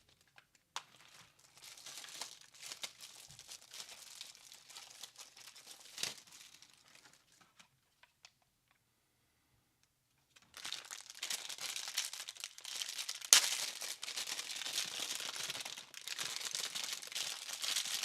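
Crinkly wrapping being pulled and crumpled as network patch cables are unwrapped by hand. The crinkling stops for a couple of seconds in the middle, then comes back louder and denser, with one sharp snap partway through the second half.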